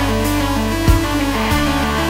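Electronic music with a deep bass line under held synthesizer notes that step in pitch, and a drum hit about a second in.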